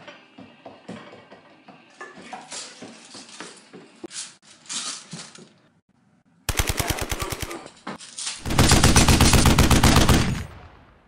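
Rapid automatic gunfire in two bursts: a short burst about six and a half seconds in, then a louder, longer one of about two seconds. Light footsteps and shuffling come before it.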